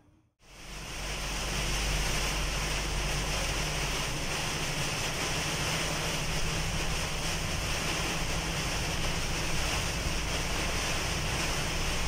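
Heavy rain and wet-road noise inside a moving vehicle's cab: a steady hiss with a low rumble underneath, rising in over the first second or so.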